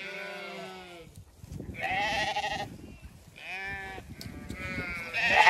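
Zwartbles lambs bleating as the flock runs across the grass: several separate bleats with a wavering pitch, one after another.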